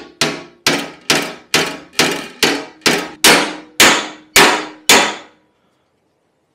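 Panel hammer striking a steel Lambretta legshield against a dolly held on the back side: about a dozen ringing metallic clangs at roughly two a second, getting a little louder, stopping about five seconds in. It is the sound of beating out a dent pulled in by an over-tightened floorboard screw.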